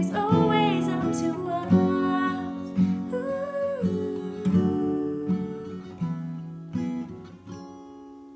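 Acoustic guitar strummed in slow, spaced chords that ring on between strikes. The playing thins out and the last chord is left ringing and fading as the song ends.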